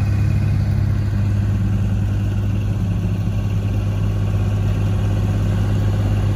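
An engine running steadily at a constant speed, a strong low hum without changes in pitch.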